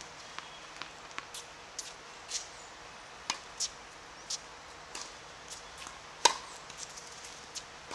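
Tennis balls striking racket strings and bouncing on a hard court: a scatter of sharp pops and ticks at uneven spacing, the loudest a little after six seconds in.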